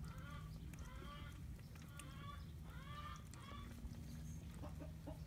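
Chickens clucking faintly: a run of short calls, each rising then falling in pitch, over a low steady hum, with a few soft ticks near the end.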